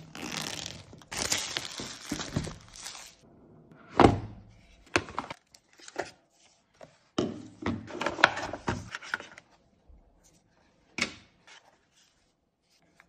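A cardboard smartphone box being unpacked by hand: rubbing and rustling of the box and packaging, a sharp thunk about four seconds in, more rustling in the middle, and a few light knocks as the contents are lifted out.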